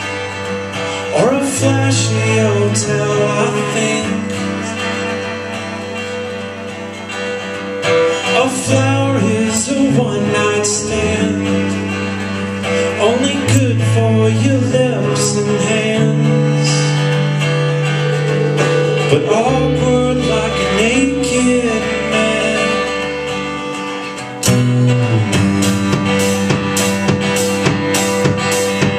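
A small band playing live: a man singing over strummed acoustic guitar and held bass notes. Near the end a drum kit comes in with a steady beat.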